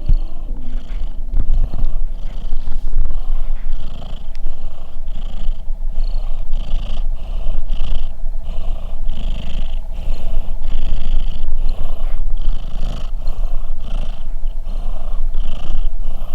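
A cat purring loudly, a deep steady rumble that pulses in an even rhythm with its breathing.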